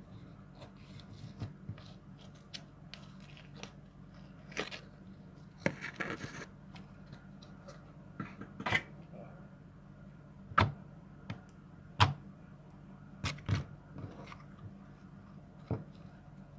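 Slime being squeezed and stretched by hand, giving irregular sticky clicks and pops, a few of them sharper and louder, over a faint steady low hum.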